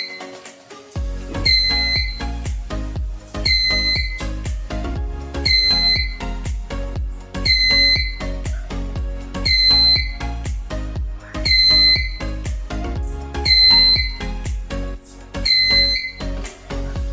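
Background music with a steady beat, and a high electronic beep repeating about every two seconds.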